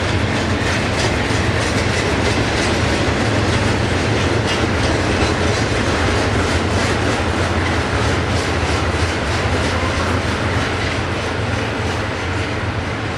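Union Pacific double-stack freight train rolling past, its wheels clicking over the rail joints in a steady, even rhythm.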